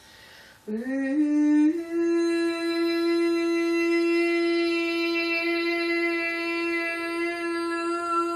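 A woman's voice takes a breath, then slides up in pitch about a second in and holds one long, steady wordless sung note, rich in overtones.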